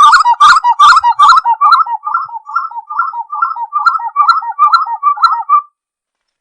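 Spot-winged wood-quail (uru) singing: a fast, rhythmic run of repeated whistled notes, about two or three a second, the first few fuller and louder. The song stops abruptly near the end.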